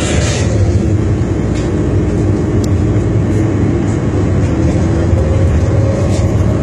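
Water taxi's engine running steadily underway: a loud, even low hum with a faint steady tone through it.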